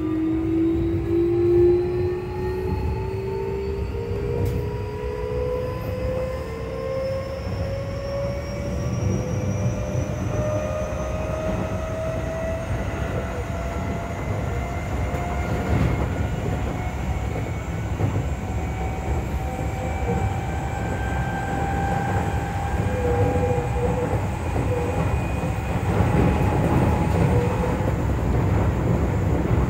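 Keio 8000 series train's Hitachi SiC-VVVF inverter and traction motors whining, the tones climbing slowly in pitch as the train accelerates and levelling off near the end. A steady rumble of wheels on rail runs beneath.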